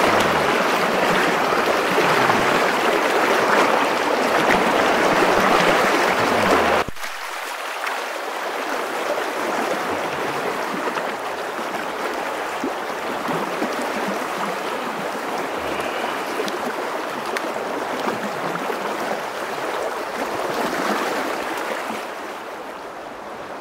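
Fast, shallow river riffle rushing and splashing close to the microphone. The sound drops abruptly about seven seconds in and falls again near the end.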